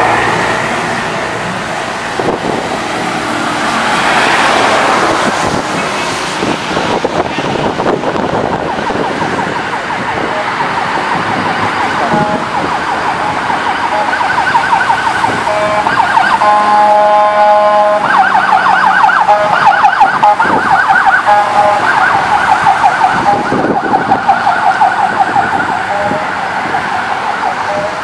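Road traffic with vehicles passing on a wet road. From about halfway an emergency vehicle siren joins in. It holds a steady tone briefly, then sounds a fast up-and-down yelp that is the loudest thing near the end.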